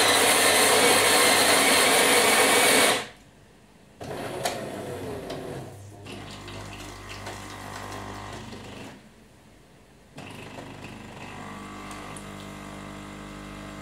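Jura ENA 8 bean-to-cup coffee machine making a coffee: its built-in grinder grinds the beans loudly for about three seconds and stops, then the machine hums in stages with short pauses, and from about ten seconds in its pump runs steadily as the coffee is extracted into the cup.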